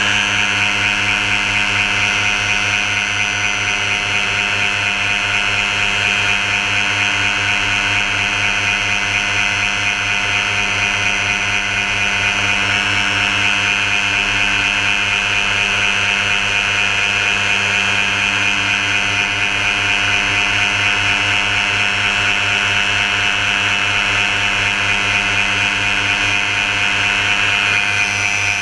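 Paramotor engine and propeller running steadily at constant throttle in flight: a continuous motor drone that holds the same pitch throughout.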